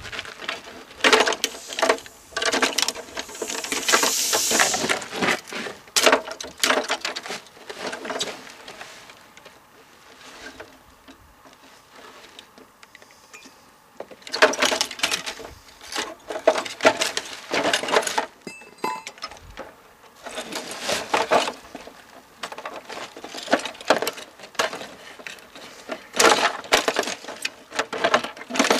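An old television being broken apart by hand with a tool: irregular runs of knocks, cracks and clinks from its casing and parts, with a quieter stretch about a third of the way through.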